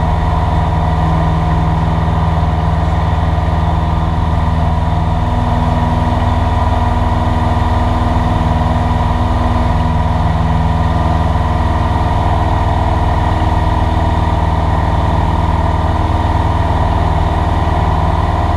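Cessna 172's piston engine and propeller running with a steady drone, heard from inside the cabin.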